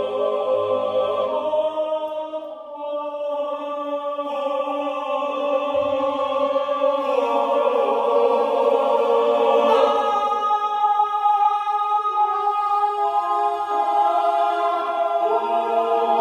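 A boys' choir singing unaccompanied, holding long sustained chords that shift slowly from one to the next. There is a short dip early on, then the sound swells toward the middle.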